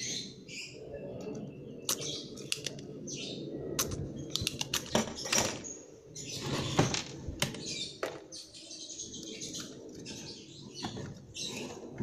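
Birds chirping in the background, with scattered sharp clicks and knocks from a circuit board and tools being handled.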